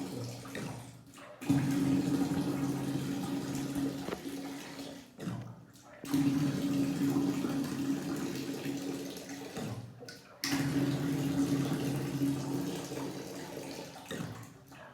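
Water rushing from a water heater being drained and flushed of sediment, with a steady hum. It comes in surges that start abruptly, fade and die away, about every four and a half seconds.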